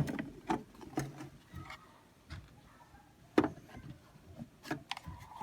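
A few short clicks and knocks from hard objects being handled, the loudest about three and a half seconds in.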